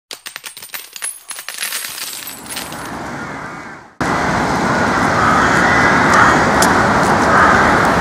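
Metal coins clinking and pouring, many quick sharp clicks that thin out and fade over the first four seconds. Then an abrupt switch to loud, steady outdoor background noise.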